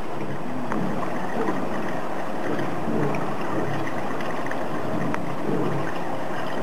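Water lapping and sloshing against the edge of a thermal bath pool: a steady wash of water noise with small irregular gurgles and a few faint drips.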